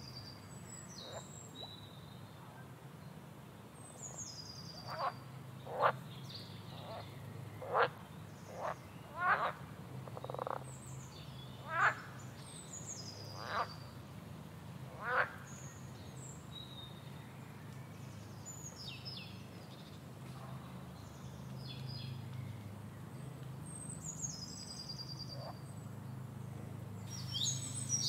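Birds calling: repeated high, falling calls, with a run of about nine louder, short calls sweeping sharply down in pitch in the middle, over a steady low hum.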